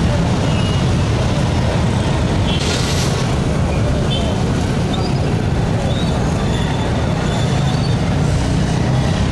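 Street traffic and crowd noise: a steady low rumble with voices in the background, and a short hiss about three seconds in.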